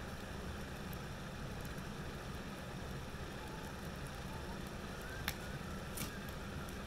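Wood fire burning in a metal fire pit with a mesh door, a steady low rush of flame, with two sharp crackling pops about five and six seconds in.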